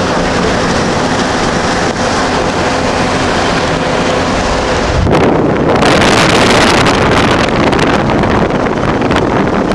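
Road vehicle driving at highway speed, heard from inside the cab: steady road and engine noise with a low hum. About five seconds in, a louder rush of wind noise takes over.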